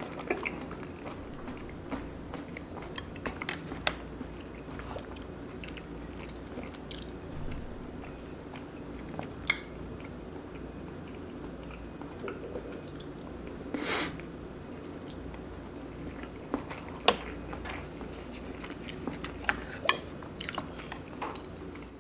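Close-miked chewing and biting of braised pork belly and kimchi with rice. Small wet mouth clicks run throughout, with a few sharp clinks of utensils against dishes, the longest about two-thirds of the way in.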